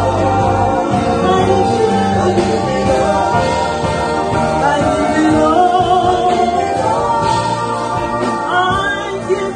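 Live gospel worship song: a woman singing lead into a microphone over keyboard accompaniment.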